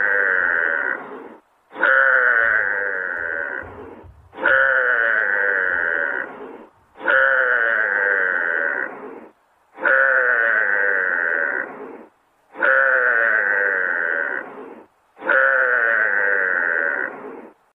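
Giraffe call repeated seven times, each call about two seconds long with a short silence between, every repeat identical as from a looped recording.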